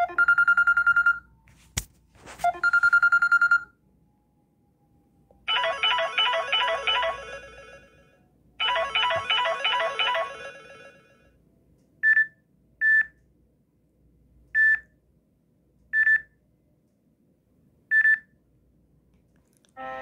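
Samsung Galaxy Tab E timer alert sounds previewed one after another from the tablet's speaker. A high ringing tone plays twice, with a sharp click between, then a chiming multi-note alert plays twice, then five short beeps come a second or two apart.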